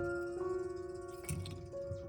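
Background music of soft, sustained melodic notes, with a short low thump about a second and a half in.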